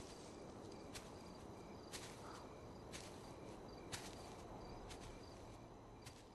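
Faint night ambience of crickets chirping in short repeated trills, with a soft click about once a second, like slow footsteps; it all fades out near the end.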